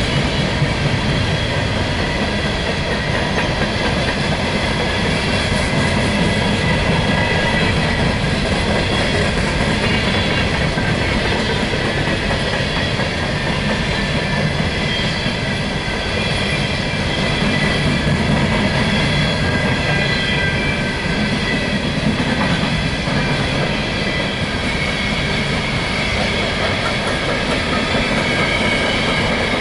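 Empty coal hopper cars of a CSX freight train rolling past steadily, their wheels rumbling and clacking on the rails. Thin, steady high-pitched squealing tones from the wheels run over the rumble and grow stronger near the end.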